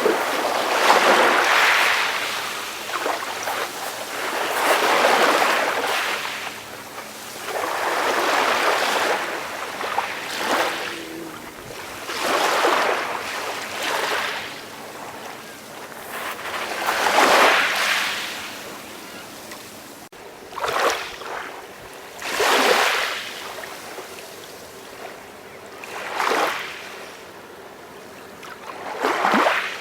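Small, calm sea waves breaking and washing onto a shore, a new wave every few seconds, each a rush of surf that swells and fades.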